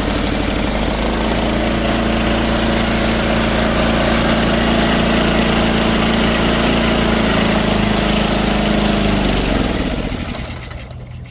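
Sears ST12 garden tractor engine running on a cold start after a battery boost. About nine and a half seconds in it slows down and dies, which is a stall.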